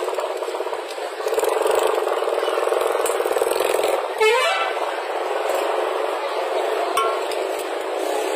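Steady street traffic noise with vehicle engines running, and a brief rising tone about four seconds in.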